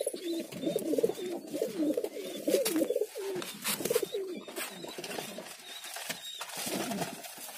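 Domestic pigeons cooing, several birds overlapping in wavering low coos that thin out toward the end, with a few light clicks.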